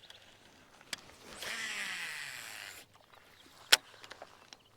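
A cast with an Abu Garcia Revo baitcasting reel: the spool whirs as line pays out, falling in pitch as it slows, and cuts off after about a second and a half. It is followed by one sharp click and a few lighter ticks from the reel.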